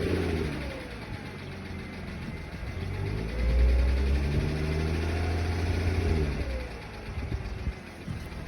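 Audi B8 S4's supercharged 3.0-litre V6 idling, then revved up about three seconds in, held there for a few seconds and let fall back to idle near the end. The engine has a loud ticking at idle, the fault being shown.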